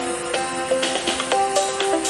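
Background music: a melody of short held notes stepping from pitch to pitch over a light, clicking beat.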